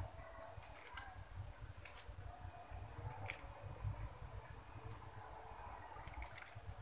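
Faint rustling and a few light clicks of a plastic piping bag squeezed by hand as cupcake batter is piped into paper cupcake cases, over a low steady rumble.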